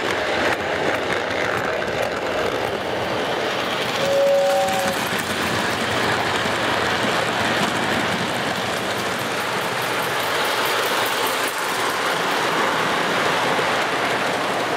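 O gauge model trains rolling past on the layout track, a steady rumble and rattle of wheels and cars. About four seconds in, a model locomotive's horn sounds once briefly, two notes together.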